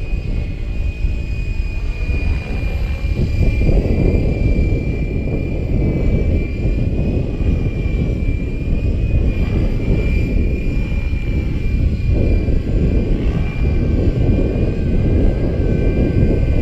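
Gaui X5 electric RC helicopter in flight: a steady high whine from its motor and rotor drive that wavers slightly. Heavy wind buffets the microphone and is the loudest sound.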